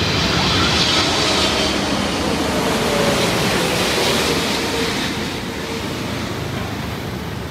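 Twin-engine widebody jet airliner passing low overhead on approach to land: a steady rush of jet engine noise with a whine that falls in pitch as it goes over, easing off slightly in the last few seconds.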